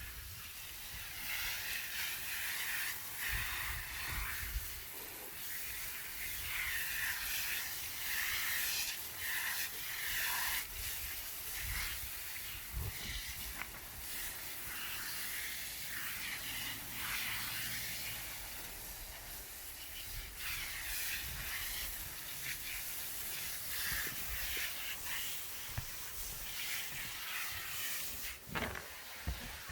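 Water spraying from a hose with a steady, uneven hiss, over scattered low rumbling bumps.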